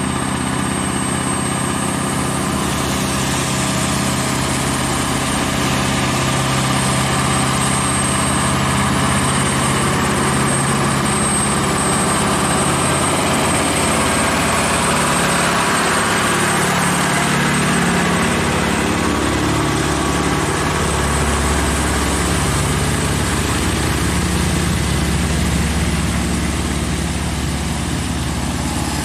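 Scania R580 truck's V8 diesel engine running steadily, its note shifting about two-thirds of the way through.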